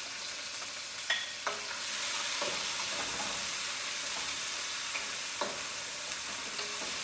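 Food sizzling and frying in a hot pan, the sizzle growing louder about two seconds in, with a few light clicks of a utensil against the pan.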